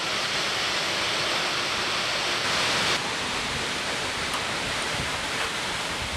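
Steady rushing of a waterfall, an even hiss with no distinct events, dipping slightly and abruptly about halfway through.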